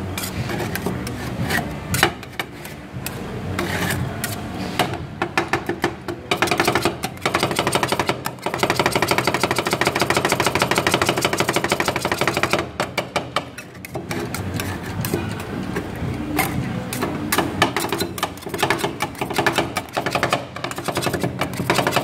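Two metal spatulas chopping and mashing ice cream on a steel cold plate: quick repeated clacks of blade on metal, running into a fast, even rattle of chops about eight to twelve seconds in.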